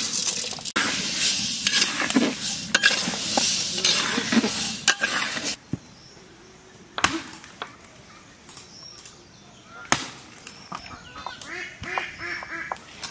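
Raw moong dal grains pouring into a dry steel kadai for dry-roasting, a loud rushing rattle of grain on metal that stops suddenly about five and a half seconds in. After that, a quieter background with a few knocks and short bird calls.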